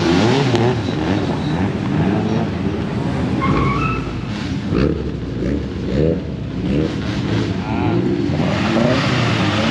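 Modified car engines running at low revs through loud aftermarket exhausts, the pitch wavering up and down as the cars creep around slowly.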